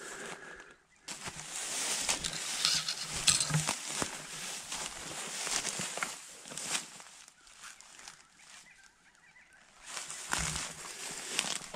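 Footsteps swishing and crunching through tall dry grass, in two spells with a quieter pause between them.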